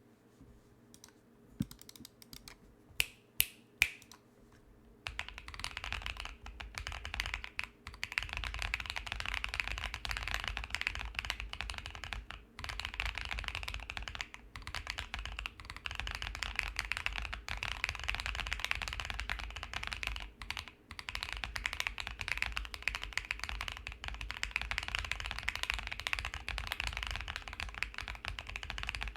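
Custom 60% mechanical keyboard with lubed tactile Holy Boba switches, taped and foam-dampened, typed on: a few single sharp keystrokes in the first seconds, then fast continuous typing from about five seconds in.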